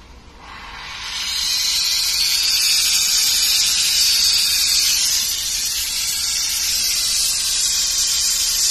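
Loud steady hiss of pressurised gas escaping at the split air conditioner's refrigerant pipe connection as the lines are joined, rising in after a brief lull and holding strong.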